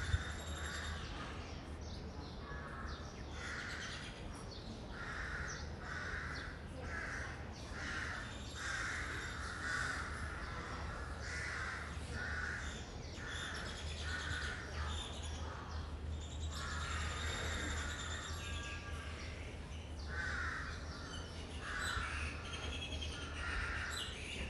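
Crows cawing over and over, a long run of short calls, over a steady low hum.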